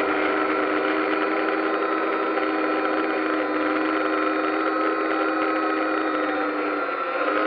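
DJI Phantom quadcopter's motors and propellers humming steadily, picked up close by the drone's own camera. The hum dips briefly near the end.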